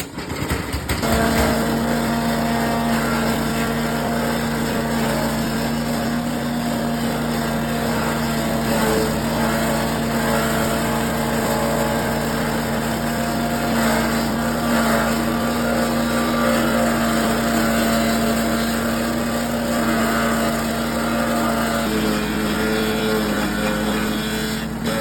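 Engine-driven grass chopper machine running steadily with a constant hum, its pitch stepping slightly lower near the end.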